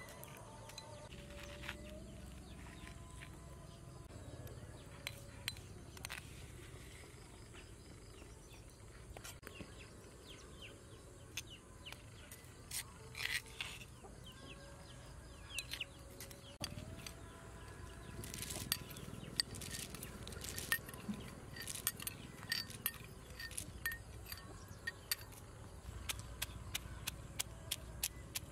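Wooden-style pounding of a pestle in a heavy stone mortar: scattered knocks and scraping at first, then a steady run of sharp knocks, about two to three strokes a second, from about two-thirds of the way through as peanuts are crushed.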